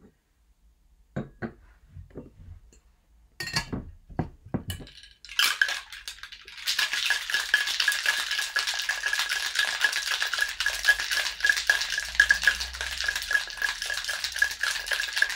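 A few knocks and clinks as the cocktail shaker is closed, then about five seconds in the shaker is shaken hard: ice rattling fast inside the stainless steel tin, with a steady metallic ring through it, to chill the drink.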